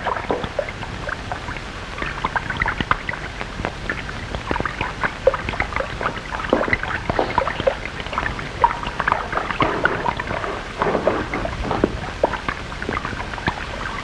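Firework spark fountain crackling and fizzing: a dense run of small irregular pops over a steady low hum.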